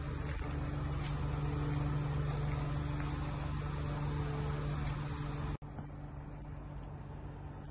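Ford Transit Custom van's engine idling, a steady even hum. It cuts out for an instant about two-thirds of the way through and goes on slightly quieter.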